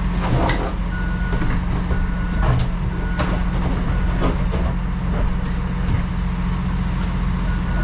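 A forklift's backup alarm beeping about once a second over a steady low engine hum; the beeps stop about four seconds in and start again near the end.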